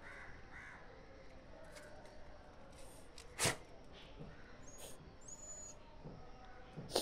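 Faint bird calls over quiet outdoor background, with one short, sharp noise about halfway through.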